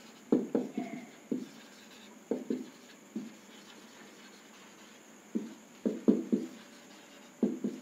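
Marker pen writing on a whiteboard: short strokes that come in bunches, with pauses of about a second between them.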